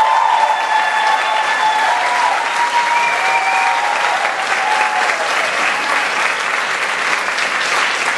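Audience applauding, with cheering shouts held over the clapping for the first five seconds or so.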